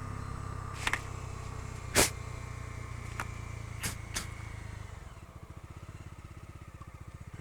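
Bajaj Dominar 250's single-cylinder engine running with a steady low hum, punctuated by a few sharp clicks, the loudest about two seconds in. About five seconds in the engine gets quieter and its note turns into an even, pulsing beat.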